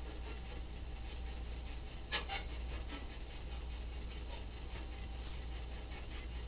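Quiet room tone: a steady low hum under faint hiss, with a couple of faint clicks about two seconds in and a brief high hiss a little after five seconds.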